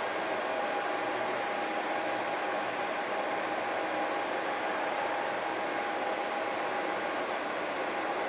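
Steady hum of city street traffic, an even wash of noise with a faint steady whine running through it.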